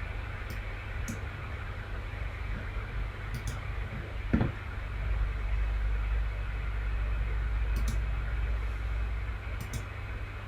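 Steady low hum and hiss of room background noise, with a few faint clicks and one soft thump about four seconds in.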